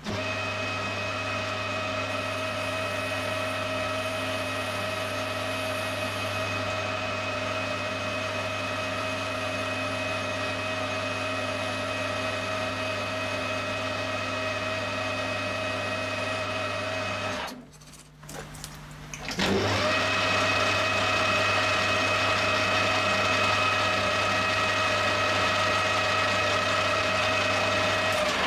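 Metal lathe running steadily with an even motor hum while turning a thin steel rod. About two-thirds of the way through it stops for a couple of seconds, then spins back up with a short rising pitch and runs on.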